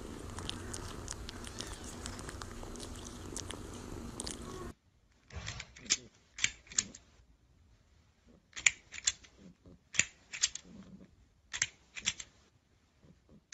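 Plastic crocodile snapper toy clacking its jaws in short bursts of two or three sharp clacks, about five bursts over eight seconds, as a cat paws at it. Before that, for about four and a half seconds, a steady low noise with faint clicks that stops abruptly.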